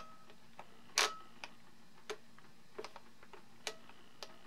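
Faint, irregular plastic clicks and ticks, the loudest about a second in, from the control sticks and case of a FlySky FS-TH9X radio transmitter being moved around and handled during stick calibration.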